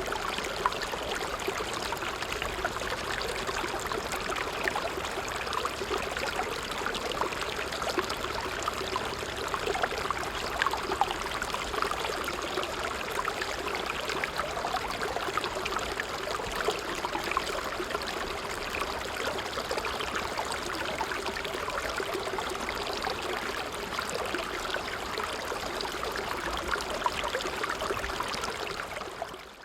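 Small stream flowing, a steady rush of water with fine trickling throughout, fading out just before the end.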